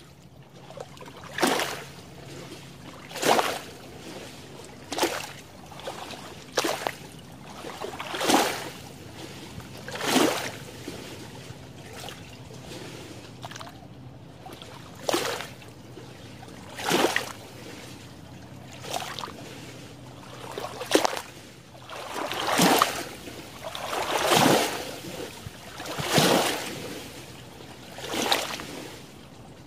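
Small lake waves lapping and splashing against the shore among water plants, a splash about every two seconds, the biggest ones in the second half. A faint steady low hum runs underneath.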